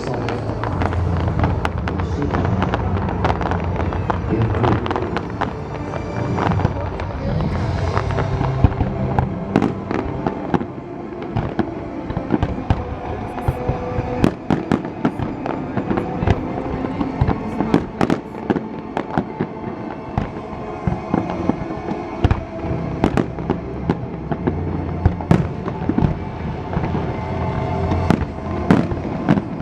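Aerial fireworks bursting in quick succession, sharp bangs and crackles coming thicker from about a third of the way in, over the show's pop music soundtrack with a heavy bass beat.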